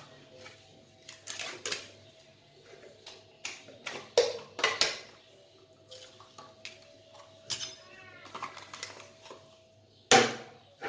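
Kitchenware clinking and knocking: a spoon and containers handled at a blender jar while yogurt is added, with scattered sharp knocks, the loudest about four seconds in and near the end, over a faint steady hum.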